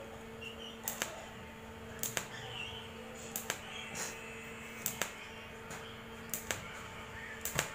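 TIG welding arc pulsed on and off in short dabs, the 'pitik' technique: about six pairs of sharp clicks a second and a half apart, over a steady electrical hum.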